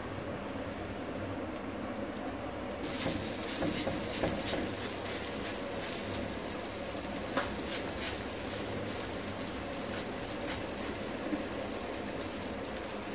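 Lachha paratha sizzling and crackling on a hot tawa, starting suddenly about three seconds in, with a steady low hiss before it.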